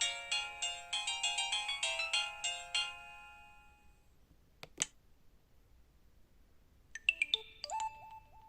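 Alcatel OT-385JA mobile phone playing a polyphonic ringtone, a quick melody of short notes that stops about three seconds in and dies away. A single click follows, and near the end a few quick clicks and short beeps.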